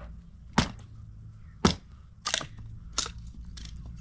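Four sharp cracking knocks, roughly a second apart, the loudest near the middle, over a steady low rumble.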